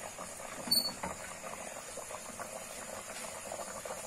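Thick taro-leaf soup bubbling in a pot on the fire, a steady mass of small pops and plops. There is a single light click just under a second in.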